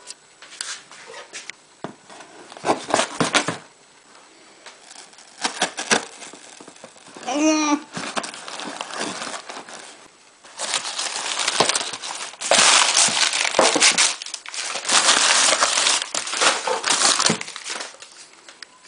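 A cardboard parcel box being opened and unpacked: scattered clicks and rustles of the box and its tape. Then, from about halfway through, crumpled newspaper packing and a plastic bag crinkle and rustle almost without a break.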